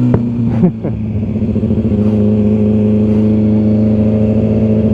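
Sport motorcycle engine running at a steady speed, with a faint rise in pitch near the end. A couple of short sharp clicks and a brief dip in the engine sound come in the first second.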